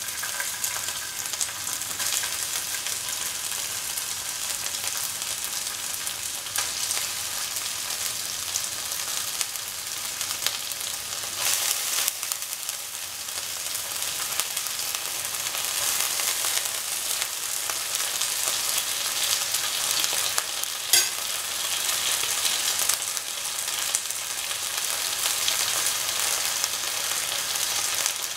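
Chopped ginger frying in a little hot oil in a pan, a steady sizzling hiss, with one sharp click about three-quarters of the way through.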